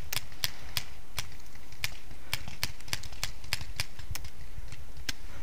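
Paintball markers firing: a run of sharp, irregular pops, several a second, over a low rumble of wind on the microphone.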